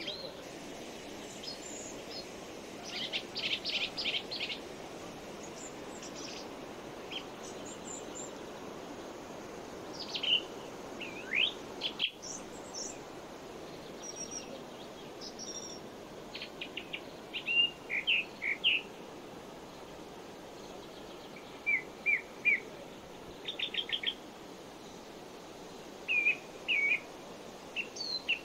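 Forest birds calling: short chirps, quick trills and rising whistled notes come in scattered bursts every few seconds over a steady low background hiss.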